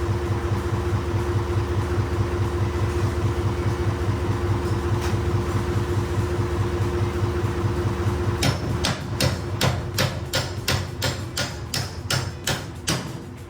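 An engine running steadily with a low, even pulse. About two-thirds of the way through it drops away, and a quick series of sharp clicks or knocks follows, about two to three a second and gradually fading.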